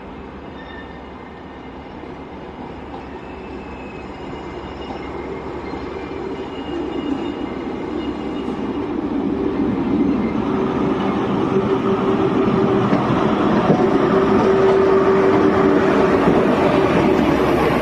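Class 43 HST diesel power car at the head of a test train, its engine droning as the train approaches and passes close by. The sound grows steadily louder for about ten seconds and then stays loud, with a steady hum over the rumble of the train on the rails.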